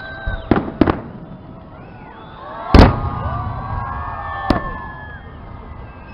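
Fireworks salute shells bursting: two sharp bangs just under a second in, then the loudest boom near three seconds, followed by a spray of whistles gliding up and down, and another sharp crack about four and a half seconds in.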